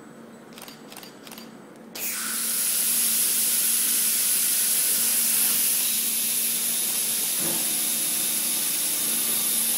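Pneumatic suction-cup gripper on an industrial robot: its compressed-air vacuum supply switches on suddenly about two seconds in and hisses steadily while the cups hold and lift the aluminium sheet. A few short clicks come before it, over a steady low hum.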